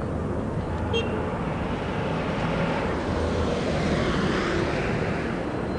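Outdoor urban background noise: a steady low rumble of traffic, with a broader rush that swells and fades in the middle, like a vehicle passing. A single short click about a second in.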